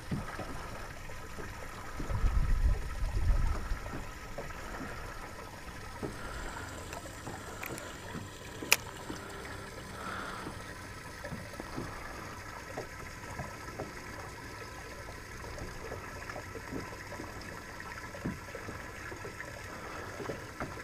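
Small ripples lapping and trickling against a boat hull. There is a low rumble about two to four seconds in and a single sharp click a little before the middle.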